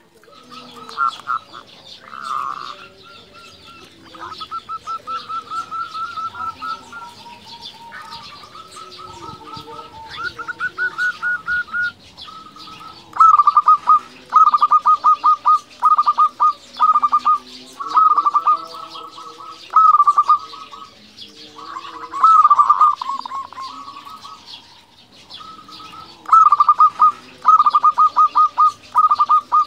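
Zebra dove (perkutut) cooing: repeated phrases of rapid staccato pulsed notes, each phrase a second or two long, with short gaps between them. The phrases grow louder about halfway through.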